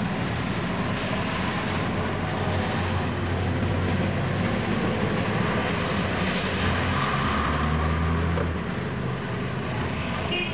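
Interior noise of a moving road vehicle in traffic: the engine running under a steady wash of road noise, its low note deepening for a second or so about seven seconds in.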